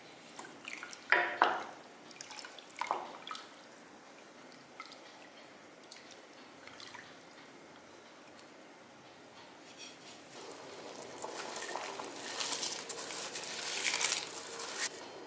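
A ladle stirring thin sambar in a steel pot, with liquid sloshing and dripping and the ladle knocking on the pot a couple of times about a second in. Near the end, cooked rice and dal are pushed by hand off a plate into the pot with a louder scraping, splashing rustle.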